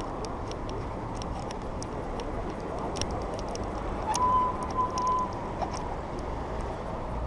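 Riding noise from a bicycle moving at night: a steady rush of wind and tyres with scattered sharp clicks. Near the middle a steady high whistling tone sounds for about a second, broken twice.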